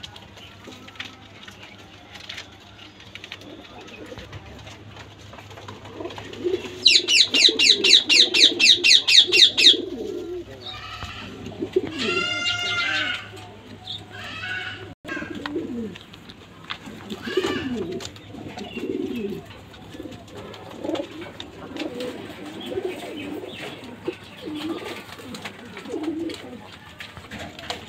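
Caged fancy pigeons cooing again and again, in short low calls. About seven seconds in, a loud, rapid, high-pitched rattling series lasts around three seconds, and a brief high chirping follows a few seconds later.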